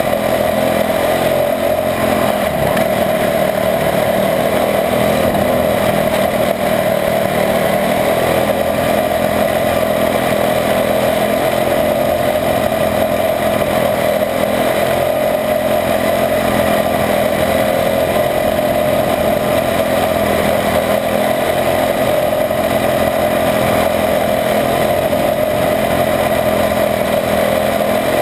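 A quarter midget's single-cylinder Honda engine running flat out under racing load, heard close up from on board the car. The engine note holds steady, its pitch wavering only slightly through the turns.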